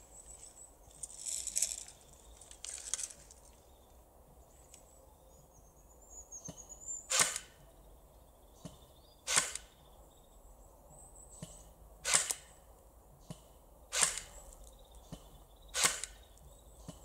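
Snow Wolf SW-02A CQB Barrett (M82A1) airsoft sniper replica firing from about 40 m away: five sharp snaps about two seconds apart, starting about seven seconds in.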